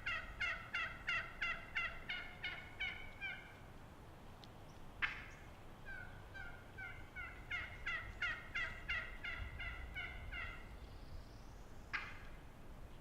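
Wild turkey yelping: two runs of rapid yelps at about four a second, each lasting around four seconds, with a few single sharp calls between and after them.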